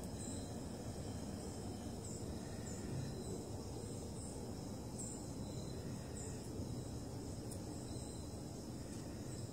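Outdoor ambience: a steady, high-pitched insect chorus of crickets, with short high chirps every second or so, over a low, even rumble.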